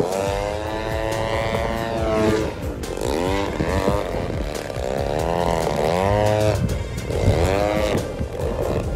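Engine of a radio-controlled aerobatic propeller plane in flight, its pitch swooping up and down several times as the plane manoeuvres.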